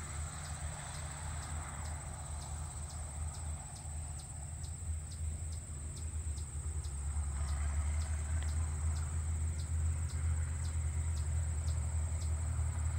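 Distant farm tractor running as it pulls a hay rake, a low rumble that grows louder about halfway through. Over it, insects keep up a steady high-pitched drone with short regular chirps about twice a second.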